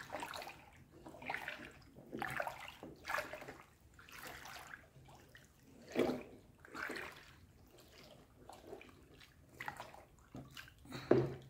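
Homemade liquid laundry soap splashing and dripping as it is lifted and poured back into a plastic basin, in a string of irregular pours. The pours show how fully liquid the mixture has become from the citric acid.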